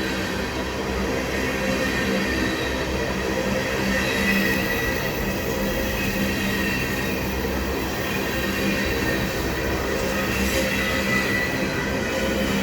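Empty ethanol tank cars of a long freight train rolling slowly past on a siding: steady wheel-on-rail rumble with a thin, high whine of wheels on the rail running through it.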